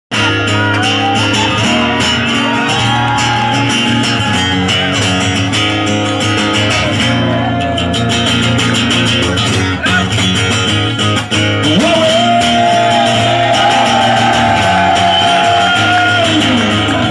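Live acoustic guitar played through a PA, with a wordless melodic line gliding over it now and then.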